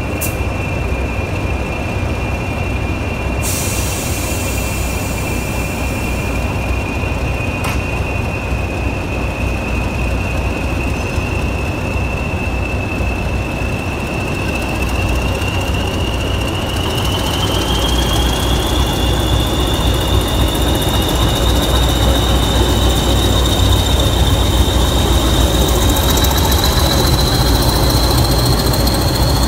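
English Electric Class 20 diesel locomotives running with a steady high turbocharger whistle, then opening up to pull away. From about halfway the whistle rises in pitch and the engines grow louder, loudest as the locomotive draws alongside near the end.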